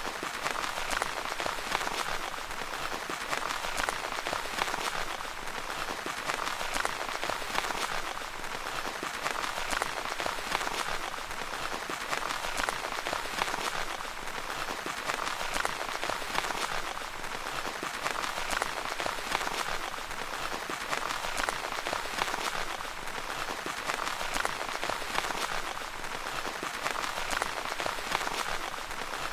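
Steady rain pattering on a tent's fabric, a dense patter of drops that swells and eases gently every few seconds.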